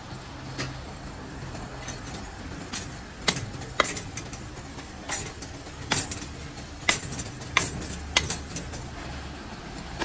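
A butcher's meat cleaver chopping into a hanging mutton carcass: about ten sharp, irregularly spaced chops, the loudest in the middle stretch, with a steady low hum beneath.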